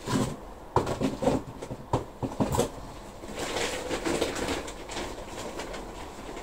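Small plastic plant pots clicking and knocking together as they are handled, a quick run of sharp knocks over the first couple of seconds, followed by a softer rustle as potting compost is scooped from a tub.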